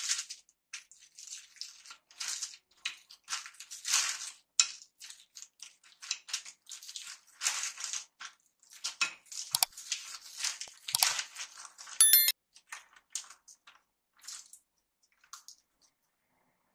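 Wooden rolling pin pushed back and forth over a butter-paper sheet on a sesame-seed mixture: irregular rustling, crinkling and gritty crunching strokes, with a brief sharp click about twelve seconds in, dying away in the last couple of seconds.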